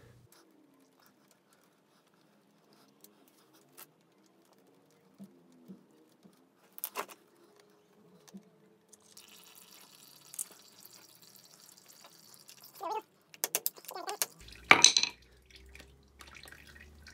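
Scattered light metallic clicks and taps of hand work on a motorcycle engine's oil filter cover and its bolts, with a sharper knock near the end.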